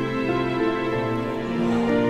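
Background music of sustained held notes, with a change of chord shortly before the end.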